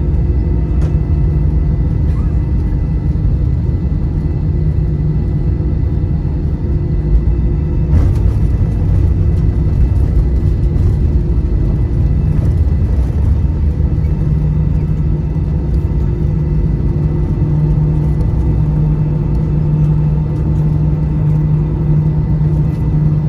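Cabin noise of an Airbus A320-214 rolling on the ground after landing, most likely taxiing: a steady rumble from the wheels and the CFM56 engines at low thrust, with a steady engine whine. Brief knocks come near the start and about eight seconds in.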